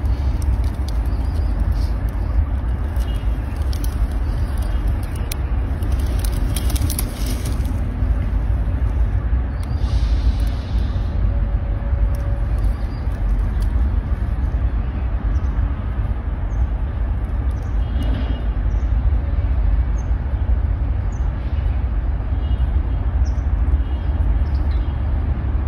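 Wind buffeting the microphone: a steady low rumble that swells and dips. A few faint high chirps come in the second half.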